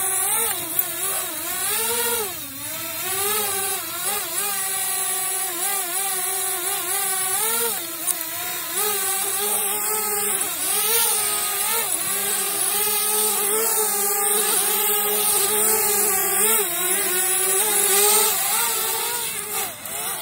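DJI Spark mini drone's propellers whining steadily, the pitch wavering up and down all the time as the motors change speed to manoeuvre.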